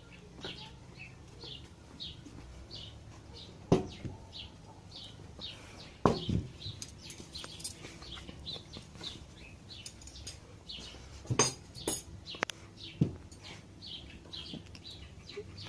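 A small bird chirping over and over, short high chirps about twice a second, with a few sharp knocks scattered through, the loudest events.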